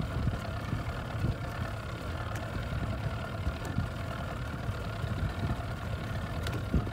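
Steady low rumble aboard a small fishing boat on open water, with a faint steady hum running through it.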